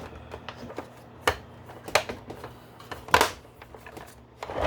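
Hard plastic parts of a G.I. Joe BUGG toy vehicle clicking and knocking as they are handled and fitted together: a scatter of small ticks and three louder clicks.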